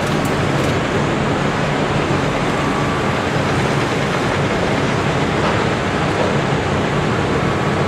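Cat 385BL hydraulic excavator's diesel engine running steadily under working load, with a couple of faint clicks in the first second.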